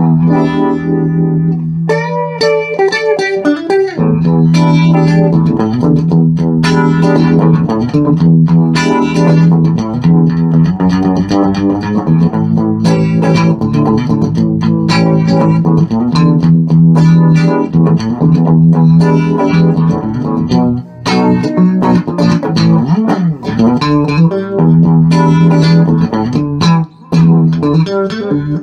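Electric guitar played through an engaged Danelectro Cool Cat Vibe, a Uni-Vibe-type modulation pedal, with its mix, speed and intensity knobs set around 2 o'clock. A riff of sustained notes, with bent notes about two seconds in.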